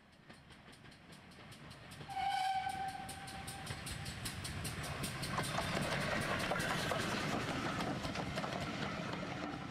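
Steam train sound fading up from quiet. A whistle blows for about a second and a half some two seconds in, then the train runs on steadily with a fast, regular beat.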